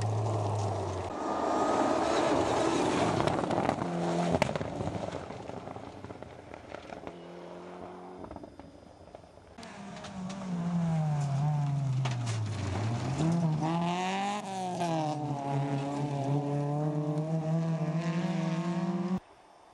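Rally car engines revving hard on a gravel stage, several cars in turn, with a rushing noise of tyres on gravel in the first few seconds. The engine pitch climbs and drops with gear changes and lifts off the throttle, then the sound cuts off abruptly near the end.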